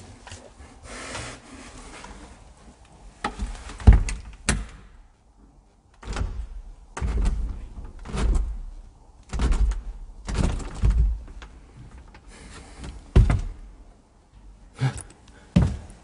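Wooden door knocking as it is handled, then heavy footsteps thudding on wooden stairs: a loud knock about four seconds in, then irregular thuds every second or so.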